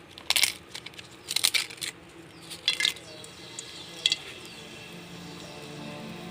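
Dry bay leaves crackling in short bursts, about four times, as they are torn and dropped into hot oil in a karai. Faint background music comes in near the end.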